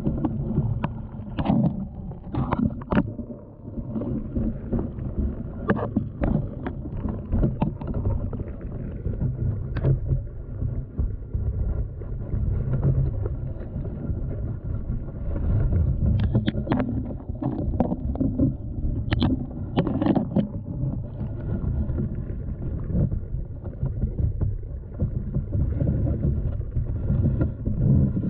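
Raw underwater sound: a steady low rumble of moving water, with scattered sharp clicks and knocks and a faint steady whine underneath.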